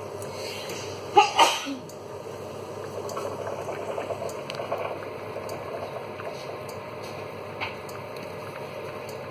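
Pot of spaghetti at a steady boil beside a pan of tomato sauce simmering on an induction hob: continuous bubbling with fine crackle. A brief loud burst comes about a second in.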